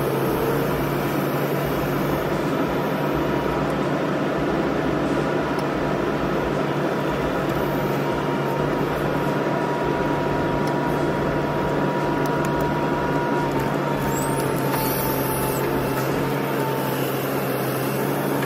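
Huddig 1160 backhoe loader's diesel engine running steadily under load while its hydraulics work the digging arm, with a thin steady whine over the engine drone that sags slightly in pitch about two-thirds of the way through.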